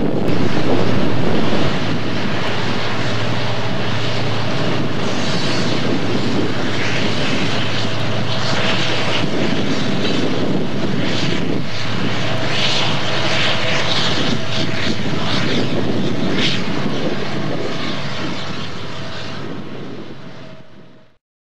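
A loaded coal train of open hopper cars rolls past, with a diesel locomotive in the consist running steadily as it goes by. There is a short louder stretch in the first two seconds, and high screeching streaks from the wheels come in the middle. The sound fades out near the end.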